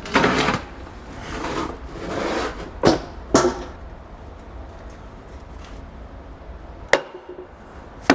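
Metal parts being handled while bolts are fitted back into an air-cart meter housing: scraping and rustling, with sharp clicks of metal on metal, two about three seconds in and one near the end.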